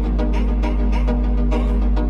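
Music with a heavy bass line, sustained pitched notes and a steady percussive beat.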